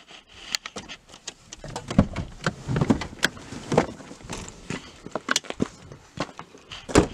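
A car door being worked from inside: an irregular run of sharp clicks and knocks, with heavier thumps and one loud thump near the end.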